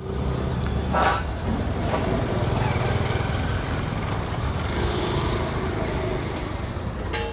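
An engine running steadily. A short, sharp sound cuts across it about a second in.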